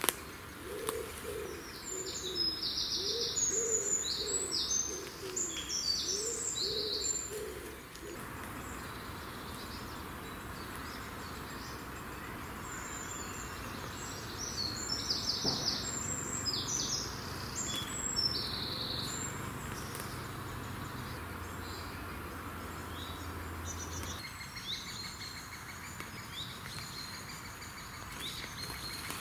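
Songbirds singing in quick high runs of notes, in three spells. Under the first spell, for about eight seconds, a pigeon coos low and repeatedly. A faint low steady hum runs through the middle stretch.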